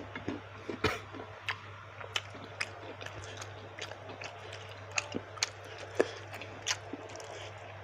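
Close-miked chewing of baso aci, chewy tapioca meatballs: irregular wet mouth smacks and clicks.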